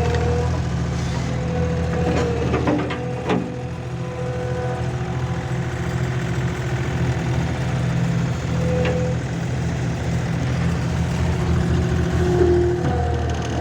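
Diesel engine of a compact earthmoving machine running steadily, with a higher tone that comes and goes above it and a few clanks about three seconds in and again near nine seconds.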